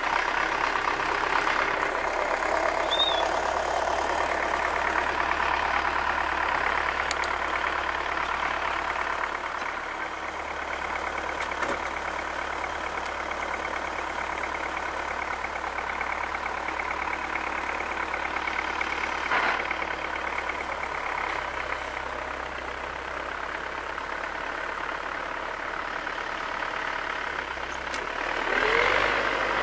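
MTZ-80 tractor's four-cylinder diesel engine idling steadily, running again after a rebuild of its injection pump. There is a brief swell with rising pitch near the end.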